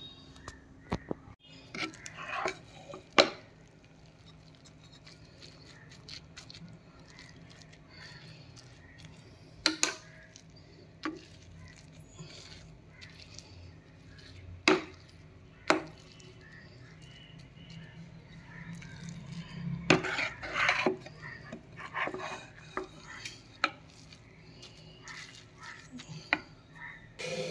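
Spatula stirring and scraping in a nonstick frying pan as almond powder is mixed into roasted vermicelli, with irregular clinks and knocks against the pan; a louder run of scraping and taps comes about two-thirds of the way in.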